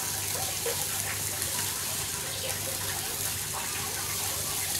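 Turkey breast sizzling on a charcoal grill over glowing natural hardwood charcoal: a steady hiss.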